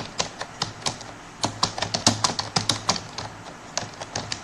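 Typing on a computer keyboard: irregular key clicks, several a second, with a brief pause about a second in.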